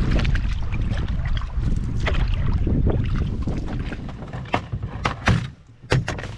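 Wind buffeting the microphone with choppy water splashing against a canoe. About four and a half seconds in, the wind drops and several sharp plastic clicks and knocks follow as a plastic tackle box's latches are snapped open and the lid lifted.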